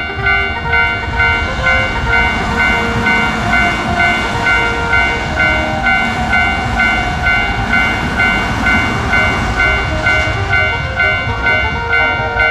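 Railroad crossing warning bell ringing in a steady, even clang-clang rhythm while a train rumbles past. The train noise swells in the middle and eases off near the end.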